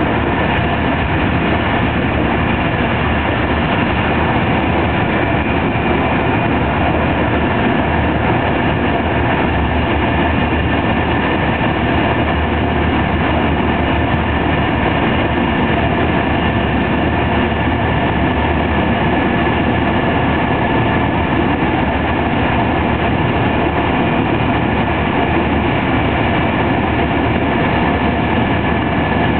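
TER 200 regional express train running at speed, heard from inside a passenger coach. It is a steady, unbroken rumble of wheels on rails with a thin steady whine on top.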